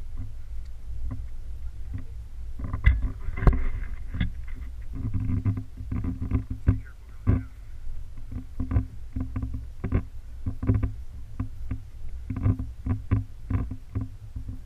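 Wind rumbling steadily on an action camera's microphone, with irregular knocks and scuffs from a hiker's shoes, hands and gear scrambling over rock and grass.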